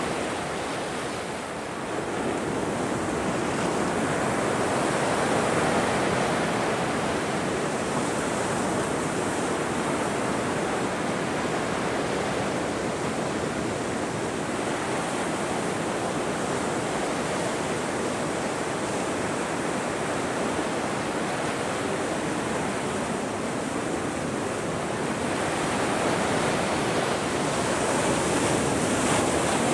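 Ocean surf: a steady rush of breaking waves, swelling again about two seconds in and building once more near the end.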